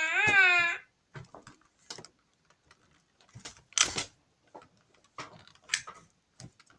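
A child's short wavering vocal sound, then irregular clicks, taps and crackles of a toy gun's packaging being handled and pried open, the loudest crackle about four seconds in.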